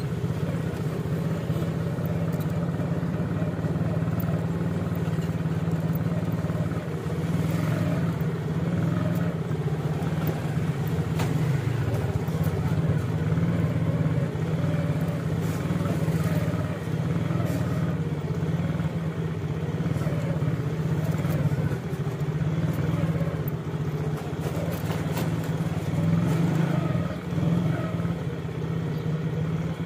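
Road traffic on a town street: a steady low engine drone of motor vehicles with general street noise and a few brief clicks.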